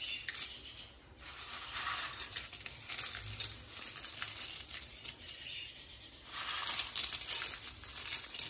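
Handfuls of dry corn flakes rustling and crackling as they are handled and scattered into a glass bowl, in two bouts with a quieter pause between.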